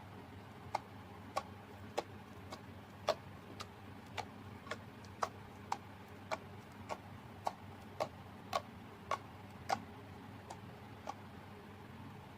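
Slime being pressed and poked with the fingers, giving sharp little clicking pops about twice a second in an even rhythm. The pops grow fainter toward the end and stop about a second before the close.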